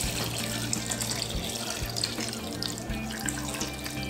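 Water pouring from a glass measuring jug into a multicooker's inner bowl, a steady splashing stream that thins to a trickle near the end.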